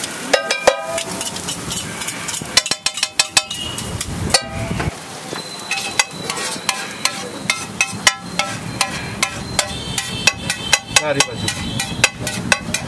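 Metal spatula striking and scraping on a large iron tawa griddle as an egg mixture is chopped and stirred. There are two clusters of ringing metallic clanks in the first few seconds, then a steady run of sharp taps, a few each second.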